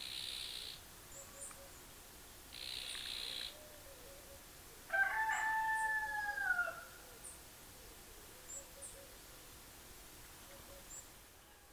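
A rooster crowing once, a full cock-a-doodle-doo of about two seconds midway through, the loudest sound here. Before it come two short harsh rasping calls, and faint high bird chirps recur throughout.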